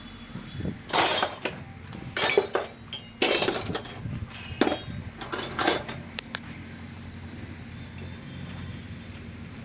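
Metal tools and parts clinking and clattering in about five quick bursts during motorcycle repair work, then stopping about six seconds in.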